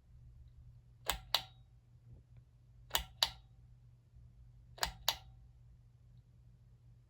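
Ceiling fan pull-chain switch clicking: three pairs of sharp clicks about two seconds apart, over a steady low hum.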